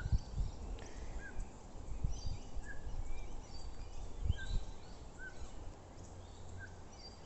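Short single bird chirps repeating about once a second, with fainter higher-pitched chirping from other birds and a few low bumps.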